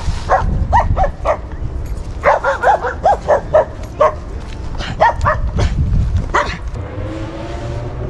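Dog barking repeatedly in quick short barks, stopping about six and a half seconds in.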